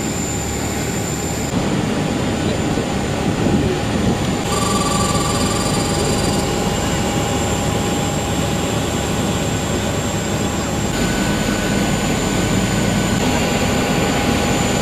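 Jet airliner noise: a steady loud rush with thin high-pitched whines over it, the mix changing abruptly a few times.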